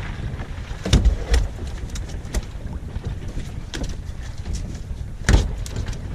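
Wind buffeting the microphone on a small boat, broken by sharp knocks: a few about a second in, one near two and a half seconds, and the loudest a little after five seconds.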